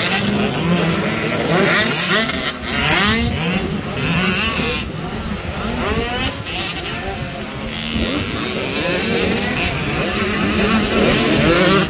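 A pack of youth motocross bikes racing, a KTM 85 two-stroke among them, their engines revving up and falling back in overlapping rising and falling pitches as the riders throttle and shift.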